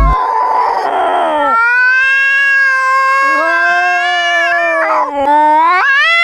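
Long, drawn-out animal howls in held notes. A second, lower voice joins about three seconds in, and the pitch slides up near the end.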